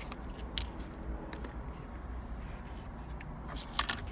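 Scattered light clicks and scrapes of hands working the short shifter's bushings loose, with a few quick clicks near the end, over a steady low rumble.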